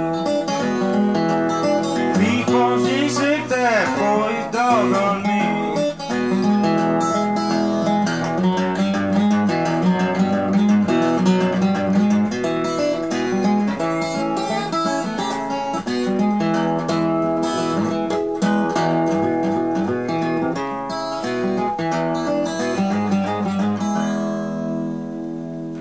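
Fingerpicked acoustic blues guitar playing from a vinyl record, with notes sliding in pitch about two to five seconds in. A final chord rings out near the end and fades away.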